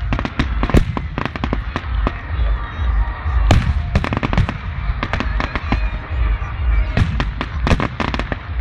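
Fireworks going off: an irregular series of sharp bangs and crackles, bunched in clusters about a second in, around three and a half seconds in, and again from seven seconds on, over a continuous deep rumble of booms.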